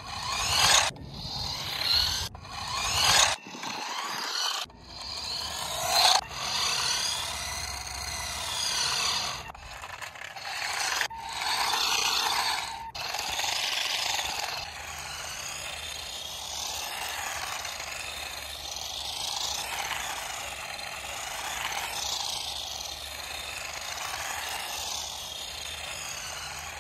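Toy remote-control car driving over rough asphalt, its plastic wheels and small electric motor making a rasping grind. It comes in short start-and-stop bursts for the first several seconds, then settles into a longer, steadier run.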